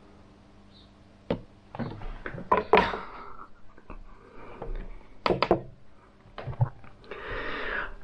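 Handling noises of a small kitchen knife being set down on a plywood board: a cluster of sharp clicks and knocks, a few more single clicks, and a short rushing noise near the end.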